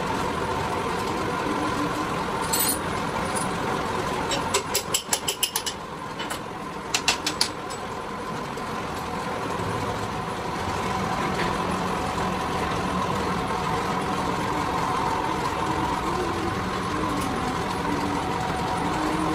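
Steady hum of machine-shop machinery running, with a quick run of sharp clicks about four to six seconds in and a few more shortly after.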